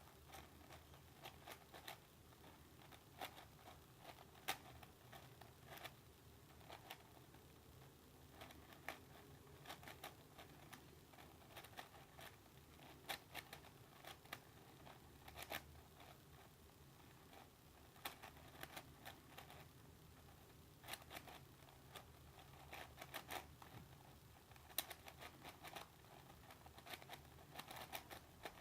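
Yuxin 5x5 speed cube being turned quickly by hand during a solve: faint, irregular runs of plastic clicks and clacks as the layers turn.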